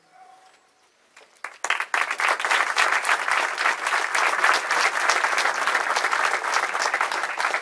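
Crowd applauding. The clapping starts about a second and a half in after a short hush and then holds at an even level.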